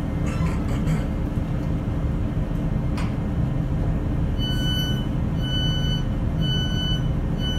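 British Rail Class 150 Sprinter's underfloor Cummins diesel idling with a steady low rumble while the train stands at a platform, with a sharp click about three seconds in. From about halfway through, the door warning beeps sound at one pitch about once a second.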